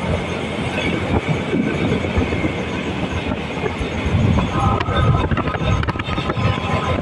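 A small KAI rail car, a mini pickup truck running on steel rail wheels, travelling along the track, under steady rushing road and wind noise from a moving vehicle alongside. A brief high ringing tone sounds about four and a half to six and a half seconds in.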